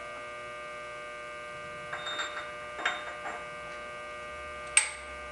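Steady electrical hum with a few light metal clinks, then one sharper click near the end, as a steel boring bar is handled and set in place on a horizontal boring mill.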